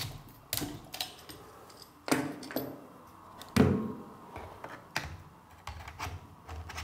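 Scattered clicks and knocks of a camera gimbal's metal and plastic parts being handled, as a piece is taken off the cradle and the camera body is set into it, with one heavier thump about halfway through.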